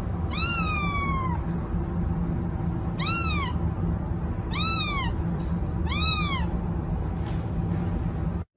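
Ginger kitten meowing four times, short high-pitched meows that rise and fall in pitch, the first one longer than the rest, over a steady low hum.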